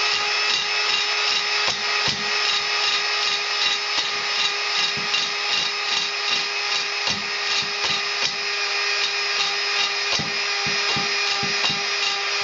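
Cordless drill running at a steady speed, spinning a three-stone hone in the oiled cylinder bore of an Onan B43G engine block, with irregular knocks and rattles as the hone is worked in and out. The hone is deglazing the cylinder wall and cutting 45-degree cross-hatch.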